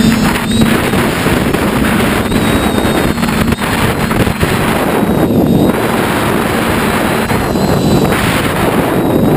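Onboard sound of a small radio-controlled aircraft in flight: its motor and propeller running steadily under loud wind rush on the microphone.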